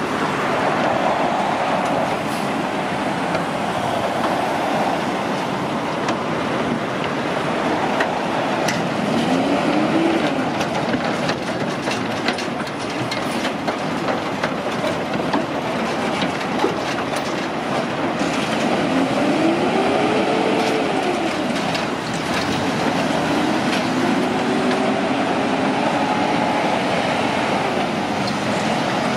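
Heavy trucks running past with a steady, loud rush of tyre and trailer noise. An engine note rises in pitch three times as a truck accelerates: about a third of the way through, near the middle where it rises and falls back, and again near the end.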